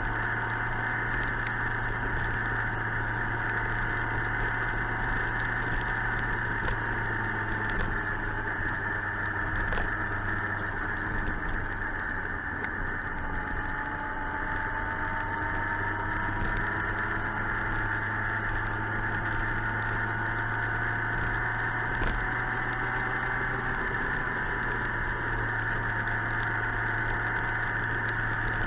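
Suzuki GSX-R 1000 inline-four engine running steadily with a constant hum. Many small rain ticks patter against the helmet camera.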